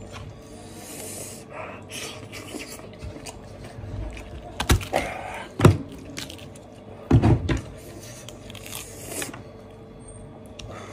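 Cooked goat head being torn apart by hand: wet, sticky tearing and squelching of meat and sauce, with three sharp cracks in the middle as bone or cartilage breaks.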